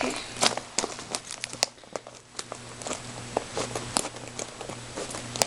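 Yellow padded bubble mailer being handled and pulled at its sealed end: irregular crinkling of the paper and bubble lining, with many sharp crackles.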